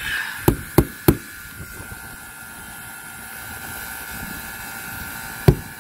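A white PVC drain fitting knocked sharply three times in quick succession about half a second in, and once more near the end, to shake out the debris clogging it. The rooftop unit runs in the background as a steady mechanical drone with a fixed tone.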